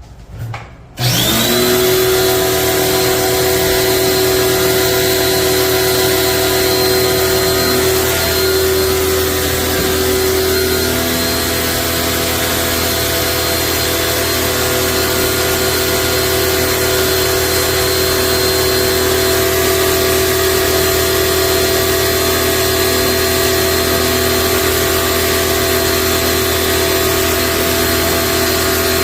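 An electric motor starts about a second in, its whine rising briefly as it spins up, then runs steadily with a constant whine over a broad hiss.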